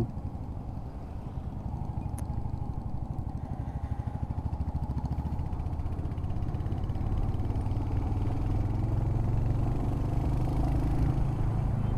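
Royal Enfield Hunter 350's single-cylinder engine running on the move, its exhaust pulsing in a steady, fast beat that grows gradually louder.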